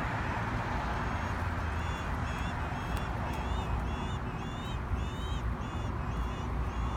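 Baby northern mockingbird in the nest calling in a rapid series of short chirps that rise and fall, about two or three a second, starting about a second in. Steady rumbling background noise runs underneath.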